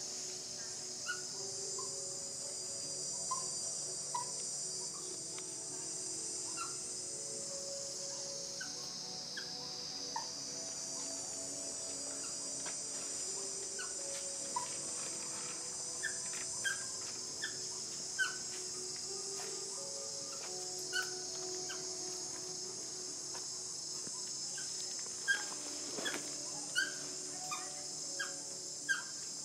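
Steady high-pitched insect drone, with a baby macaque giving short, high squeaks and cries while it is massaged. The squeaks come more often in the last few seconds.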